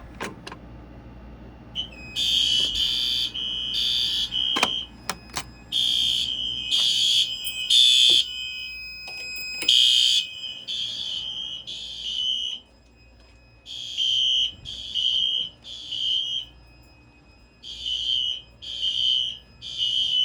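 Fire alarm horn sounding with a buzzy tone, its blasts falling into repeating groups of three with a pause between groups: the temporal-three evacuation pattern. A few sharp clicks come first, from activating the Simplex T-bar pull station, and the horn starts about two seconds in.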